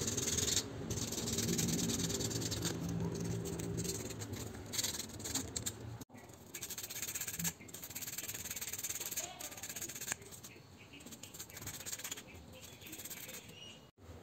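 Light scraping and small metallic clicks from a scooter brake-light switch contact being scraped clean by hand with a thin tool. A low steady hum fades out over the first few seconds.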